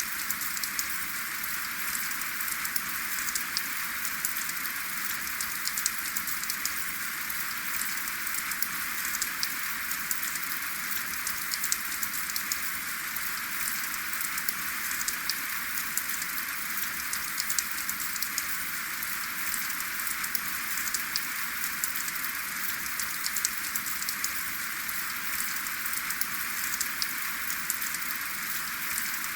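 Steady rain with no thunder, a constant hiss of falling rain dotted with the close ticks of individual drops.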